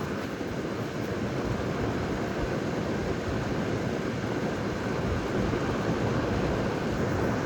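Steady low rushing background noise with no distinct events, even and unchanging.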